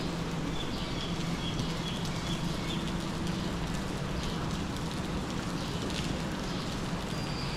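Steady rain falling, with a constant low hum underneath and a few short high chirps in the first few seconds and again near the end.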